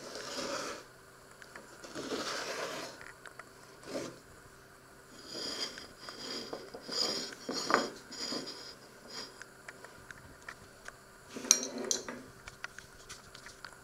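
Scrapes and clinks of serving pizza: the pizza shifted on its wooden board, a plate set down and cutlery handled, in short separate bursts with a sharp clink near the end.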